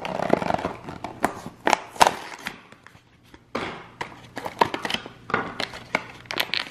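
Clear plastic blister bubble of an action-figure card pack crinkling, with irregular sharp clicks and snaps, as it is prised off the cardboard card back and handled.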